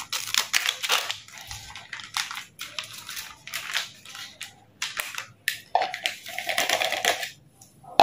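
Plastic spice-mix packets crinkling and rustling in the hands as they are handled and cut open with scissors, in a run of irregular sharp crackles.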